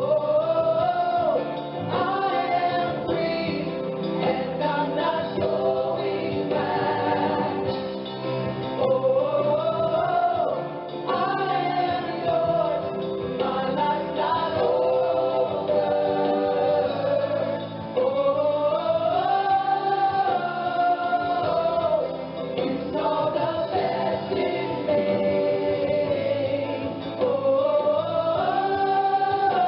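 Background music: a gospel-style choir singing sustained, swelling phrases over steady accompaniment.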